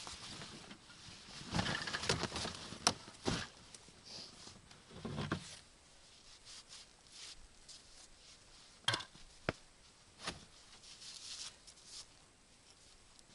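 Gear being handled and unloaded from a plastic sled: scattered knocks and clunks, with rustling and brushing in between. The loudest knocks fall in the first few seconds, with a low thud about five seconds in and a few sharp clicks later.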